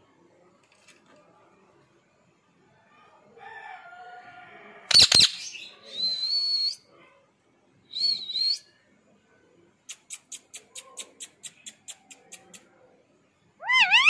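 Pet ring-necked parakeet calling: shrill squawks and whistled screeches, with a rapid run of about a dozen short clicking chirps at roughly five a second in the second half, and loud screeching calls near the end.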